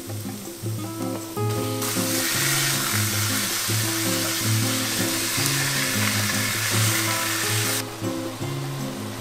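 Ground beef sizzling as it hits a hot pot of sautéed chopped onions. The loud sizzle starts about two seconds in and cuts off sharply about a second before the end, over background music.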